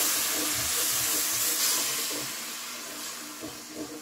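Chicken broth poured into a hot butter-and-flour roux in a stainless steel pot, hissing loudly in a burst of steam. The hiss is strongest at first and dies away over the last couple of seconds.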